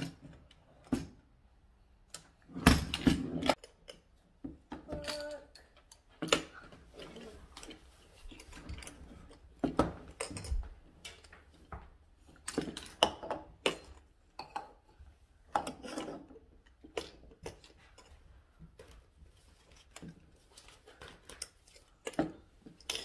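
Small metal latches and hinged doors on a wooden toy lock box clicking, rattling and knocking irregularly as a toddler's hands work them, with the loudest cluster of knocks about three seconds in.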